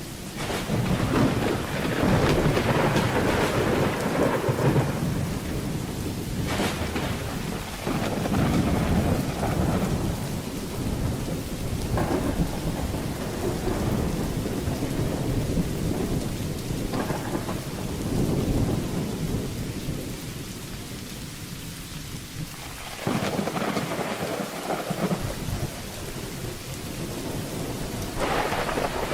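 Steady rain with repeated rolls of thunder rumbling through it, several peals one after another, with a quieter spell about two-thirds of the way through.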